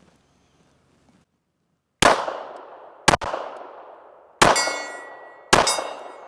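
Four pistol shots from 9mm and 7.65 Parabellum DWM Luger pistols fired side by side, about a second apart, starting two seconds in. Each shot is followed by a long echo that dies away over about a second.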